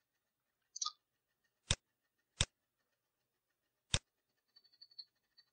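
Three separate clicks of a computer mouse's left button, spaced about a second or more apart, with a faint brief rustle before the first; otherwise near silence.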